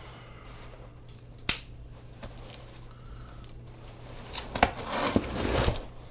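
A cardboard shipping box being cut and opened: a sharp snap about one and a half seconds in, then scraping and rustling of tape and cardboard near the end.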